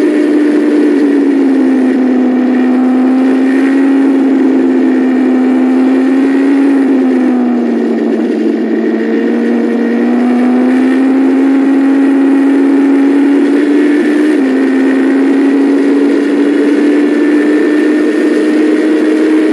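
Onboard sound of a Super Formula car's Toyota turbocharged four-cylinder engine running at high revs under steady throttle, its pitch sagging and rising gently through the corners. About fourteen and a half seconds in the pitch steps up suddenly, then holds steady.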